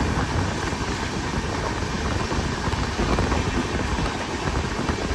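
Running noise of a fast passenger train heard at an open coach door: a steady rumble of wheels on rail with rushing air.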